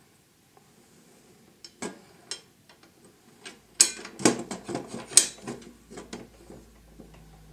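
Steel table-saw blade and arbor flange being fitted by hand onto the saw's arbor: a scatter of light metallic clicks and clinks, heaviest about four and five seconds in.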